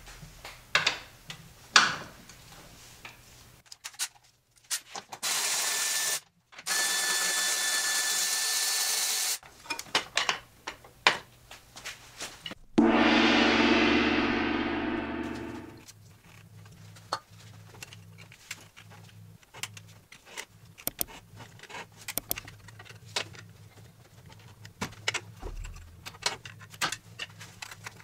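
Hand-tool work in a car's engine bay: scattered ratchet clicks and metal taps, with a power tool running twice for a few seconds. About halfway through comes a loud ringing sound that fades away over about two seconds.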